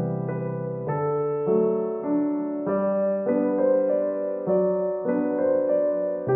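Background piano music, with a new chord or note about every half second.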